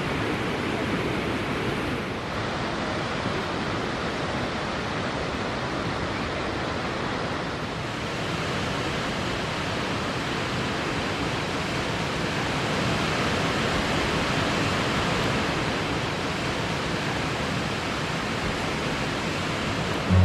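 Steady rushing of a waterfall, an even hiss of falling water with no letup, shifting slightly about two and eight seconds in.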